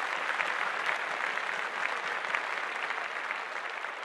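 Audience applauding, a dense patter of many hands clapping that slowly begins to fade near the end.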